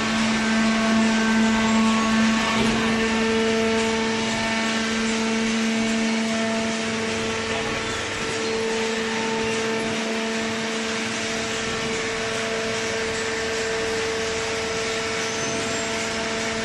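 Industrial cardboard shredding and baling machinery running: a steady mechanical noise with a constant hum.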